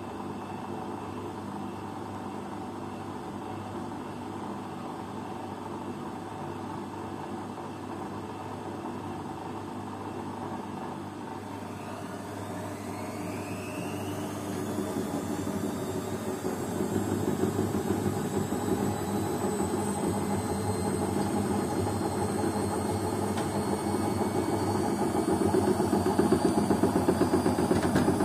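Beko front-loading washing machine running with a steady hum, then about halfway through its motor whine starts rising in pitch and the drum grows louder as it speeds up into a spin.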